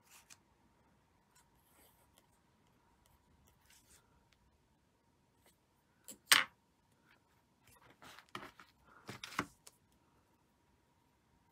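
Hands handling a paper notebook and lace: quiet rustling and rubbing. One sharp, louder rustle or tap comes about six seconds in, then a cluster of rustles about eight to nine and a half seconds in. A faint steady tone runs underneath.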